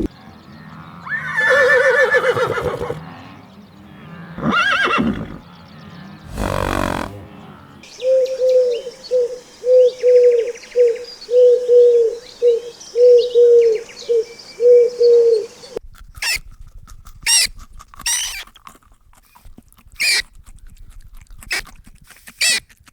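Farm animals calling: three separate pitched calls in the first seven seconds, then a run of short repeated notes about twice a second, then a string of sharp high chirps near the end.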